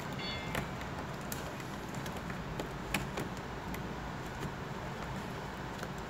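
Screwdriver bit, held in a Leatherman multitool's pliers through a homemade bit adapter, turning a screw into a wooden board: faint scattered clicks and creaks, with a brief squeak near the start, over a steady low hum.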